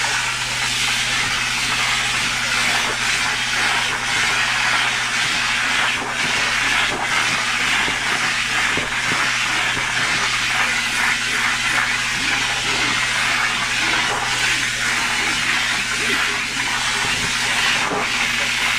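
Upholstery extraction machine running: a steady hiss of suction as the hand tool is drawn across a fabric sofa cushion, over a low motor hum.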